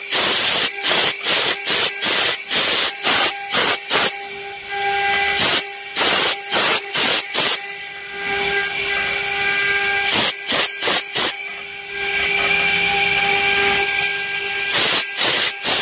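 Stone CNC engraving machine's spindle and engraving bit cutting a stone slab under water coolant: a steady whine over an even hiss, broken by quick dropouts about two a second in several stretches.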